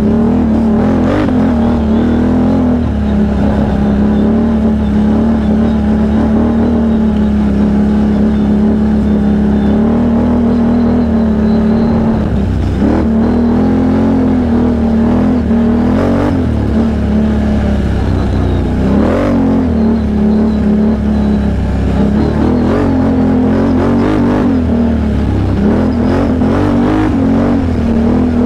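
Can-Am Outlander XMR 1000 ATV's V-twin engine running under way at a steady pull. Its note dips and picks up again several times, around the middle and near the end, as the throttle is eased and reopened.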